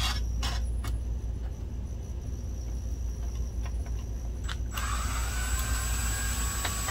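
A cordless drill/driver backing out a small screw from a sheet-metal frame: a few light clicks of the bit being set, then the motor runs as a steady whine for about two seconds near the end and stops.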